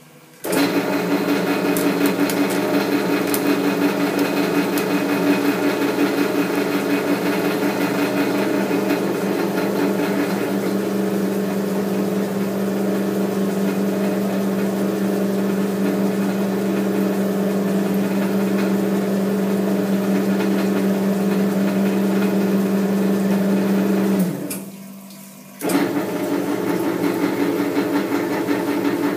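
Metal lathe running at its slowest speed while power-tapping a half-inch UNF thread with a tapping head, a steady motor and gear hum. Near the end it stops for about a second and a half, then starts up again.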